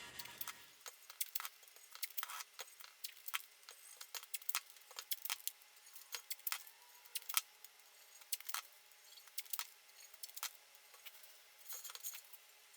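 Scattered light clicks and clinks, irregular, a few a second, like small hard objects being handled.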